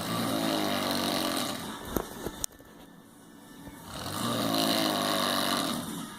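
A person snoring loudly: two long snores about four seconds apart, with two brief clicks in the quieter stretch between them.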